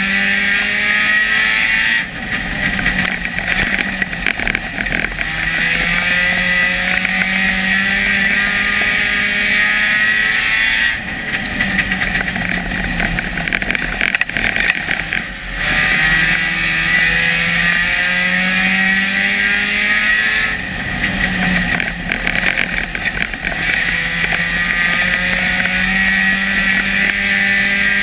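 Onboard a dirt-track stock car at racing speed: the engine climbs steadily in pitch down each straight, then drops away into harsher, rattling noise as the car goes through the turns. This happens about two, eleven and twenty-one seconds in, roughly once every nine seconds.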